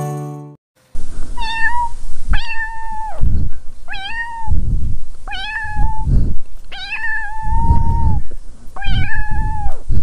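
A kitten meowing six times: high mews that rise and fall, the longest a little over a second. Low thumps and rumbles come between the mews.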